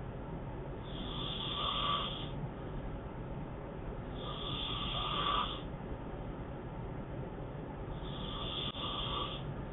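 A sleeping man snoring, three snores about three and a half seconds apart.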